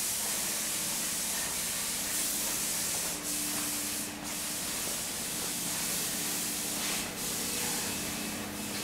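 Steady hiss and hum of knitting-factory machinery running in the background, with a few faint brief rustles.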